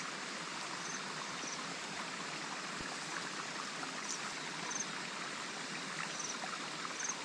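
Steady rain falling on a rice paddy, an even hiss, with a few faint short high chirps now and then.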